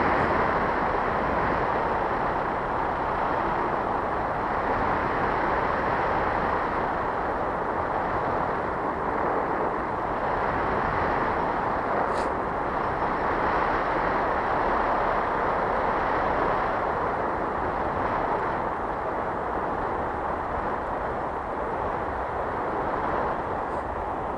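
Wind rushing over the microphone in paraglider flight: a steady, even rushing noise, with one faint click about halfway through.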